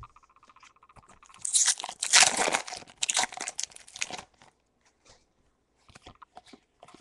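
Foil Pokémon booster-pack wrapper being torn open, with loud crinkling and tearing for about three seconds. A few light clicks of the cards being handled follow near the end.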